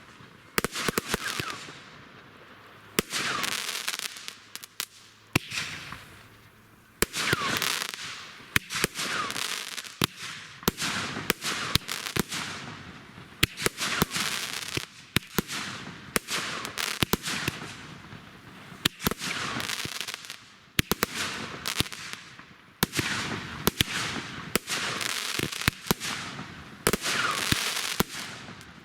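Fireworks going off in quick succession: many sharp bangs and pops, with hissing, crackling spells of a second or two between them and short whistling glides in some of those spells.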